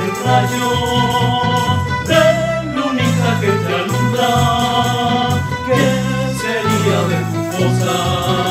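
A student tuna ensemble playing and singing: acoustic guitars, piano accordion and mandolins strumming steady chords under male voices singing a lively folk melody, with tambourine jingles.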